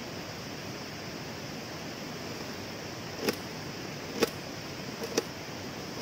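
Kitchen knife cutting through a small red onion and striking the aluminium mess-tin lid beneath it: three sharp taps about a second apart in the second half. Under them, the steady rush of a waterfall and stream.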